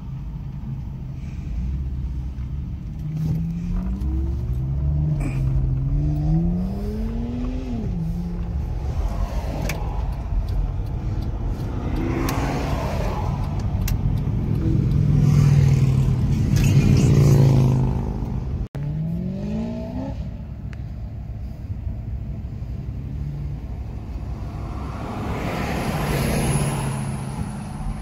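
Ford Mustang V8 engine accelerating hard through the gears, heard from inside the cabin. The revs climb several times and drop at each upshift, and the engine is loudest just past the middle.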